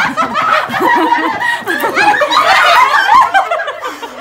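A group of women laughing loudly together, several voices overlapping in giggles and chuckles.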